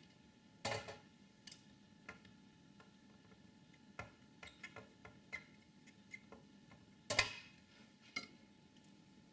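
Scattered light clicks and taps, with two louder clacks about a second in and about seven seconds in: hands pulling old capacitors out of a motherboard softened on a board heater.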